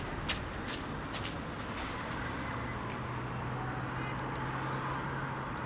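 A few sharp footstep-like clicks on hard ground in the first second and a half, then a vehicle engine running steadily with a low hum and road noise.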